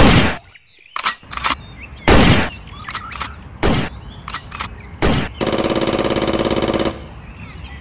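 Gunshot sound effects: about eight separate sharp bangs at irregular intervals, then a rapid machine-gun rattle lasting about a second and a half.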